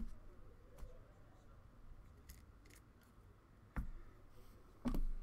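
Faint scissors snipping and handling clicks, as when card packs are cut open: a few scattered short snips, the two sharpest near the end.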